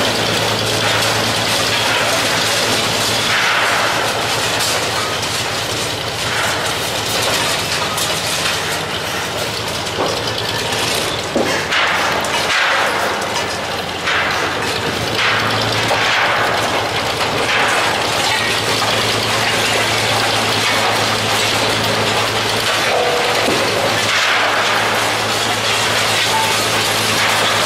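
Heavy diesel demolition machinery running steadily with a low hum, while concrete cracks and rubble clatters down from the silo top being broken apart. There is one sharp loud crack about eleven seconds in.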